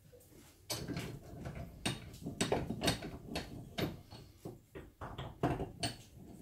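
Bench vise and metal parts being handled: a run of irregular clanks and knocks, starting about a second in, as the vise handle is worked and a part is set in its jaws.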